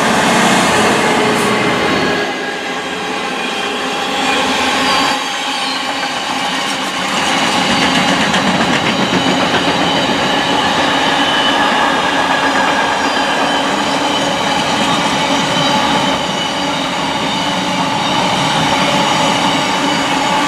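Freightliner Class 66 diesel locomotive hauling a container freight train past at speed. The locomotive passes at the start, followed by a long run of loaded container wagons whose wheels rumble and rattle over the rails. Steady high whining tones come from the wheels.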